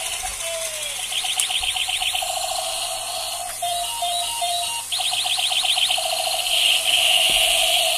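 Battery-powered toy robot walking and playing its electronic sound effects from a small speaker: beeping tones and two bursts of fast pulsing warble, with a steadier tone near the end.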